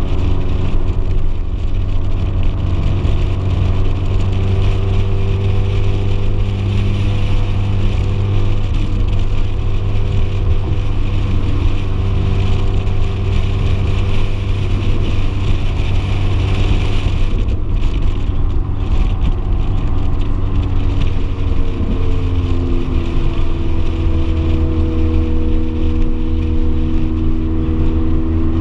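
Ferrari F430 Spider's V8 engine running steadily while cruising, with wind and road noise over the open top. About three-quarters of the way through, the engine note drops to a lower pitch and holds there.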